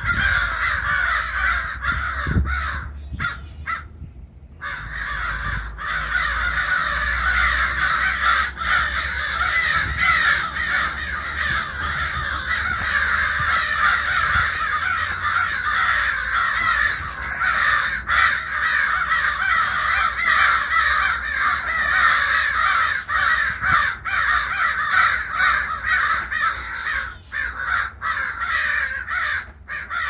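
A flock of crows cawing loudly and nonstop, many calls overlapping, with a brief lull about four seconds in. The crows are mobbing an owl perched in the tree.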